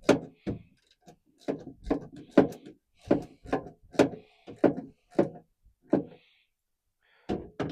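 Hand ratchet clicking in a steady rhythm, about two clicks a second, as the Torx screws holding a truck's tailgate backup camera are run down tight; it pauses about six seconds in and resumes briefly near the end.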